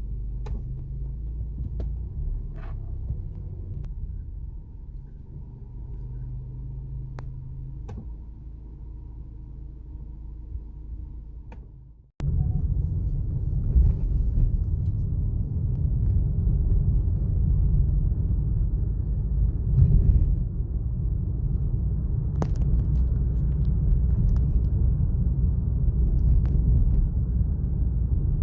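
Suzuki Swift Sport's 1.4-litre turbocharged four-cylinder engine running, with a steady low rumble. The sound cuts out briefly about twelve seconds in and comes back louder.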